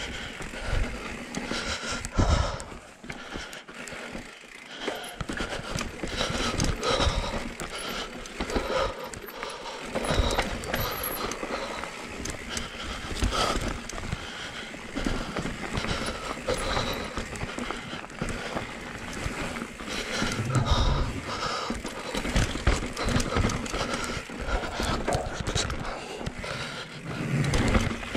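Cube Stereo 170 full-suspension enduro mountain bike riding down a rocky dirt trail: tyres crunching over dirt and rock while the bike rattles and knocks over the bumps, with heavier thumps about 20 seconds in and near the end.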